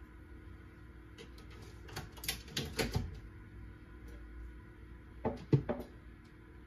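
Clicks and clatters of kitchen things being handled, a quick run of them about two to three seconds in, then two sharper knocks about five seconds in.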